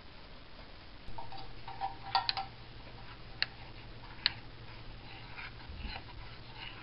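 Metal spoon clinking against the sides of an enamel mug while cornstarch is spooned in and stirred into liquid: a few sharp clinks about two to four seconds in, over a low steady hum that starts about a second in.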